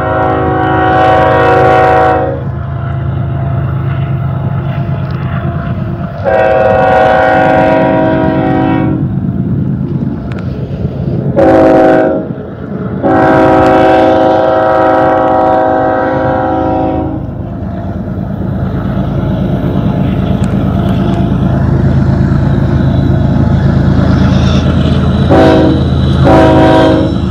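BNSF diesel freight locomotives approaching, their multi-note air horn sounding long, long, short, long, the standard grade-crossing signal, over a steady engine rumble. The rumble grows louder in the second half, and two short toots sound near the end.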